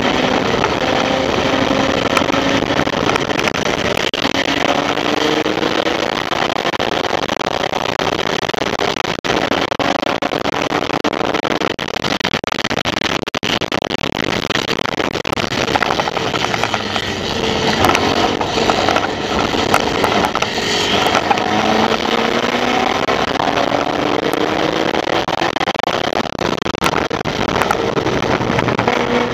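Formula Vee race car's air-cooled Volkswagen flat-four engine running hard at racing speed, heard from the cockpit. Its pitch climbs slowly several times as the car accelerates, dropping back at each shift or lift.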